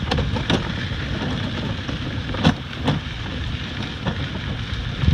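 Wheeled dog cart rolling fast over a gravel road behind a husky team: a steady rolling rumble mixed with wind on the microphone, with a few sharp knocks and rattles from the rig, the loudest about two and a half seconds in.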